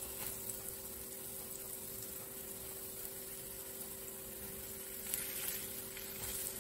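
Sunflower oil sizzling steadily in a frying pan as flour-coated zucchini rounds are laid in to fry, with a faint steady hum underneath.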